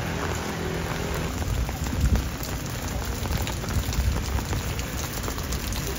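Steady rain falling, with many small drop hits ticking through it.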